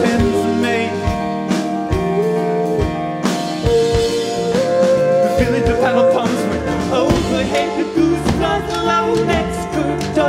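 A live band playing a song: a held sung melody over bass, drums and other instruments, with regular drum hits.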